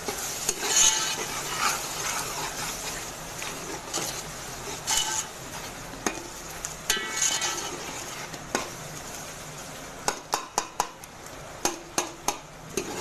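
Steel ladle stirring and scraping a masala of onions and tomatoes frying in oil in a steel pot, over a steady sizzle. Near the end there is a quick run of sharp metallic clicks from the ladle against the pot.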